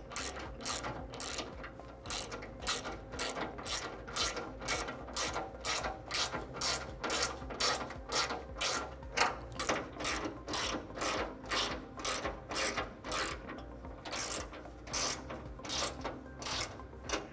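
Hand ratchet clicking in short, even back-strokes, about two a second, with a brief pause about three-quarters through. It is driving a hex bit to tighten the bolts of the roll bar clamp brackets on a side-by-side roof.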